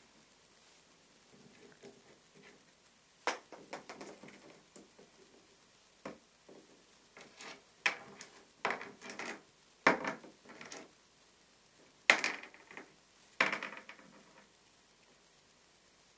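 Small pebbles clicking and clattering against one another and the desk mat as a galah picks them up and drops them with its beak: scattered clusters of sharp knocks with short gaps between.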